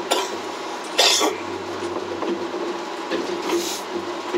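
Running noise heard inside a Skyrail cabin, the rope-driven suspended car, moving along its track: a steady hum with a light knock about twice a second. A loud short rasp comes about a second in, and a fainter hiss a little later.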